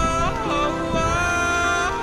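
Background music: a melody of held notes that slide in pitch, over a steady low accompaniment.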